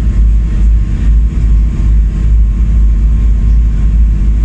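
Passenger ferry's engine running with a steady, loud low rumble.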